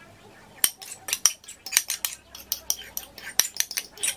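Metal fork scraping and clinking against a ceramic bowl, scraping out the last of a runny egg topping: many quick, irregular clicks starting about half a second in.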